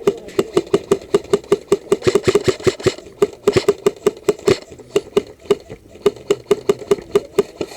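Airsoft gun firing a long run of rapid, evenly spaced shots, about six a second.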